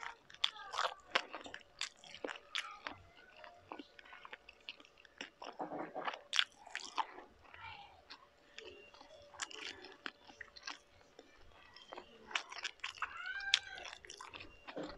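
Close-miked chewing: a person eating, with irregular wet mouth clicks and smacks.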